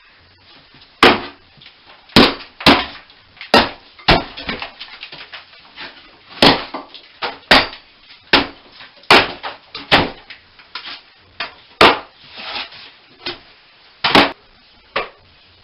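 Hammer blows breaking up a wall during bathroom demolition: irregular sharp strikes, roughly one or two a second, some followed by a brief clatter of falling debris.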